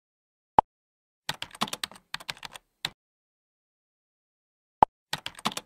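Computer keyboard typing: quick runs of key clicks in two bursts, the second near the end. Between them, a short sharp blip sounds twice, once about half a second in and again just before the second burst.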